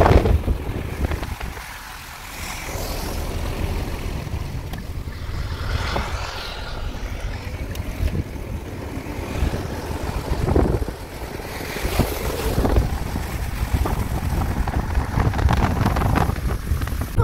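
Wind buffeting the microphone over the wash of sea surf, rising and falling in irregular gusts.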